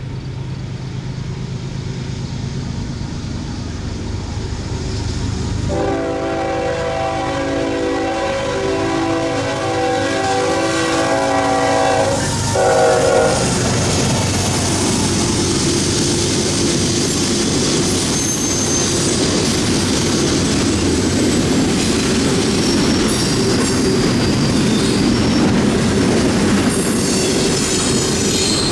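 Diesel freight locomotive approaching a grade crossing, its engine droning, then sounding its horn in several blasts from about six seconds in until about thirteen seconds in as the crossing warning. The train then rolls through, with steady wheel-on-rail noise, clickety-clack over the joints and some high wheel squeal.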